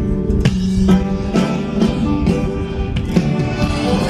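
Instrumental stretch of a slow ballad's accompaniment: guitar plucked or strummed about twice a second over held chords, with no voice.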